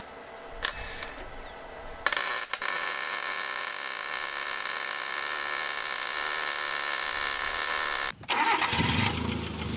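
Electric arc welding on steel box-section: a brief blip of arc about half a second in, then a steady crackling, sizzling arc for about six seconds that cuts off suddenly about eight seconds in.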